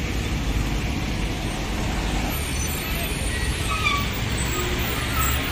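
Road traffic passing close: the engines of motorcycles, a minivan and a bus running by in a steady rumble.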